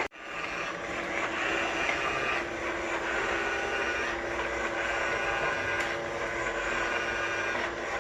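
iSweep S320 robot vacuum running: a steady motor whir with a held humming tone. The sound drops out for an instant just after the start.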